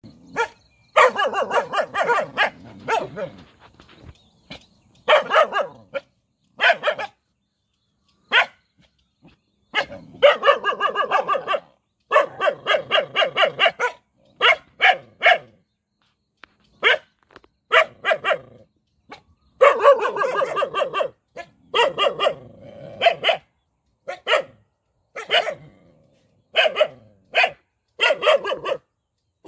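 Several puppies barking in quick runs, the barks overlapping at times, with short pauses between the runs.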